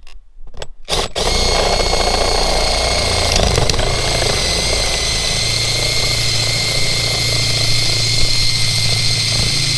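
Cordless drill with a spade bit boring a hole through vinyl siding. A few short blips in the first second, then the drill runs steadily with a high motor whine.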